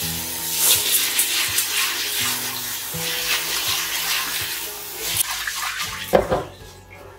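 Kitchen tap running into a pot of dry lentils while a hand swishes and rubs them to rinse them. The water stops shortly before the end, and a short, loud thump follows.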